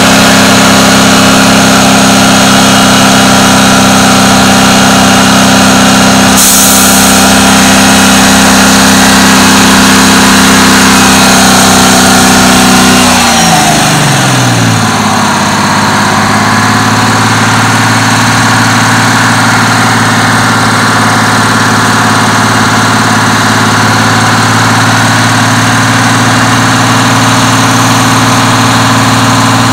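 Detroit Diesel 6V92TA two-stroke V6 diesel of a 1988 MCI Classic coach held at raised revs, then dropping back to a steady idle about halfway through. A short hiss comes about six seconds in.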